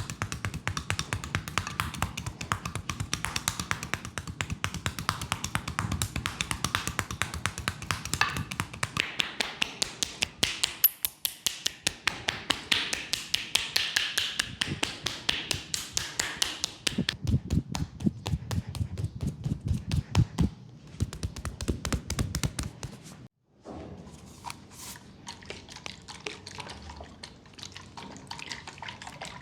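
Fast percussive massage tapping, several quick strokes a second in a steady rhythm. Just before the end the sound cuts off briefly, and the tapping that follows is quieter.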